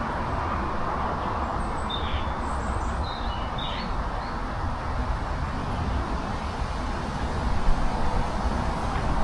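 Steady outdoor background rumble with a few faint, brief bird chirps between about two and four seconds in.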